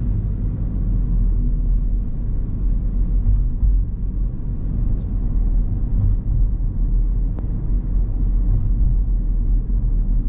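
Steady low rumble of a car's engine and road noise heard inside the cabin while driving, with a few faint ticks in the middle.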